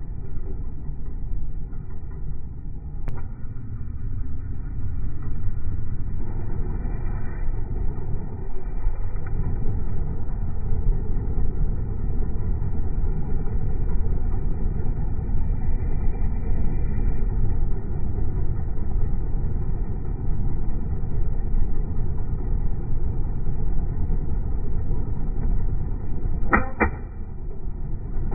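Comfort Zone heater fan running, heard as a steady low rumble of moving air with the microphone right at the grille. A sharp click comes about three seconds in and a few more clicks near the end.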